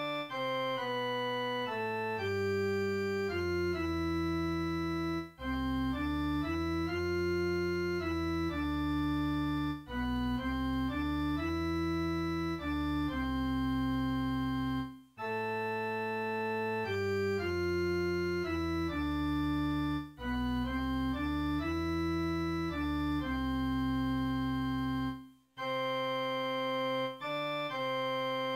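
Organ music: slow held chords over a moving bass line, in phrases of about five seconds with a brief break between each.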